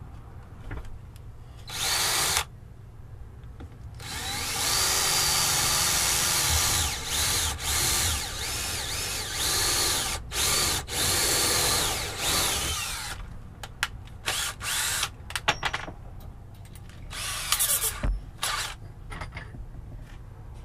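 Cordless drill/driver driving screws into a plywood deck. A short burst comes about two seconds in, then a long run of about nine seconds with the motor's pitch rising and falling as it works under load, then several short trigger bursts near the end.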